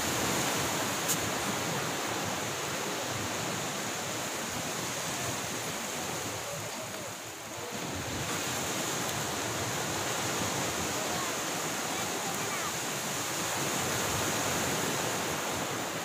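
Ocean surf washing ashore: a steady rushing hiss that ebbs briefly about seven seconds in and then swells again.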